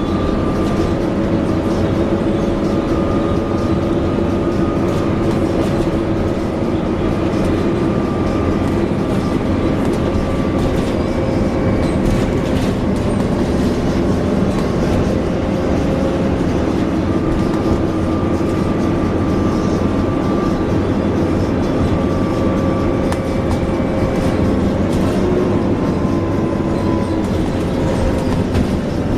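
Alexander Dennis Enviro400 double-decker bus running, its drivetrain giving out steady whining tones that drift slightly in pitch, fade for a few seconds in the middle and then return.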